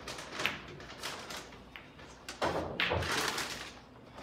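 Pool balls on a billiard table: a few sharp clacks, then two heavier knocks about two and a half seconds in.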